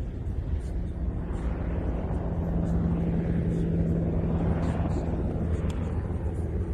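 An aircraft passing overhead: a steady engine hum that swells and then fades, over a constant low rumble of wind and surf.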